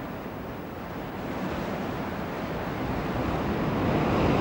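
Sea surf surging and foaming through a narrow rock channel: a steady rush of water that builds gradually louder toward the end.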